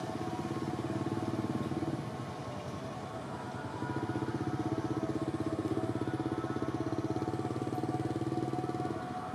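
An engine idling steadily off-screen, with a rapid, even throb. It eases off briefly about two seconds in, then runs louder from about four seconds in.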